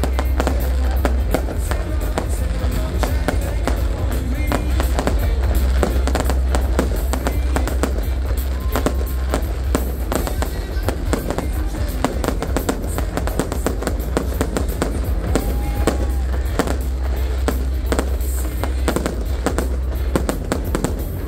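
Fireworks bursting in rapid, continuous succession, mixed with loud music playing throughout.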